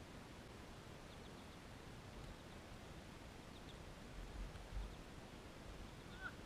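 Faint outdoor background with a few short, high bird chirps and low rumbles a little after four seconds in.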